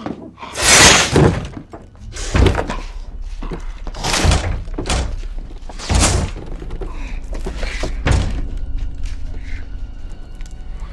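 Film sound effects: a series of heavy thuds and crashes against a leaded-glass window, about six blows at uneven intervals, each loud and sudden, over a low rumble.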